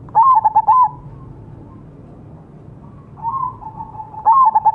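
Crossbred zebra dove (perkutut) singing: a quick, stuttering phrase of cooing notes right at the start, then the same phrase again near the end. A fainter call comes between the two phrases.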